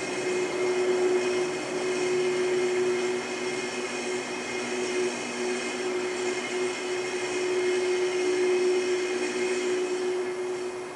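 Homemade flux capacitor prop's sound effect: a steady electric hum and buzz, with a higher whine over it, that drops away near the end.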